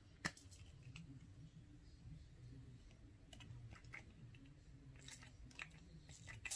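Near silence with a few faint, scattered clicks and light handling noises.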